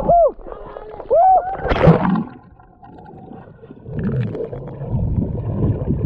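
A swimmer whooping twice at the water's surface, then a splash as the microphone goes under. After that comes muffled underwater rushing and gurgling of water and bubbles.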